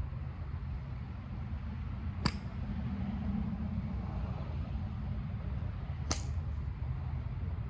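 Two sharp, crisp clicks of a golf club striking a ball off a range mat, about four seconds apart, the first the louder, each with a brief ring. A steady low rumble of wind on the microphone runs underneath.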